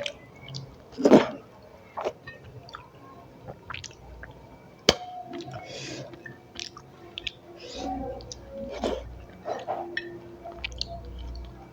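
Close-up chewing and wet mouth sounds of someone eating rice and curry, with irregular smacks and clicks, the loudest about a second in.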